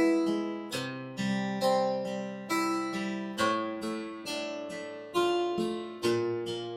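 Background score of plucked guitar-like notes, roughly two notes a second, each ringing and fading before the next.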